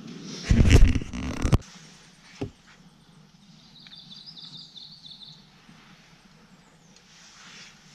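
A loud low rumble and clatter about half a second in, cut off by a sharp click, then a single knock; a bird calls with a rippling, high chirp for about a second and a half near the middle.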